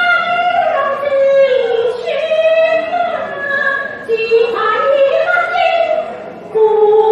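A high woman's voice singing Cantonese opera, holding long notes that slide between pitches, in phrases broken by short pauses.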